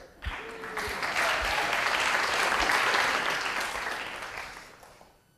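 Audience of students clapping, swelling about a second in and dying away near the end.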